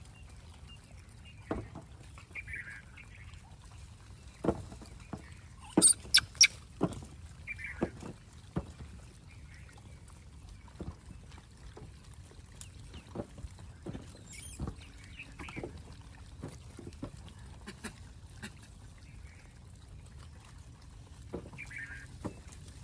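A troop of gray langurs feeding, with scattered short calls and small clicks and rustles. The loudest is a quick cluster of sharp calls about six seconds in.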